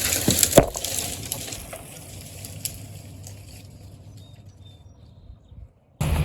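Branches and brush crashing and rustling as a cut tree comes down through the canopy, with one sharp crack about half a second in, the rustling then dying away. A low steady rumble cuts in abruptly near the end.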